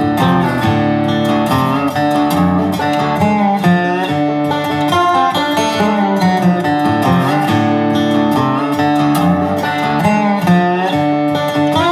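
Background music led by acoustic guitar.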